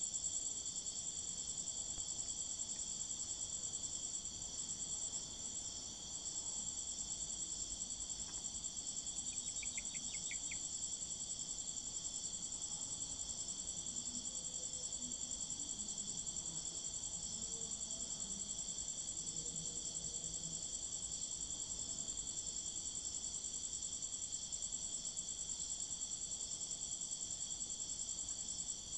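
Steady, unbroken high-pitched chirring of crickets, dipping briefly about five seconds in.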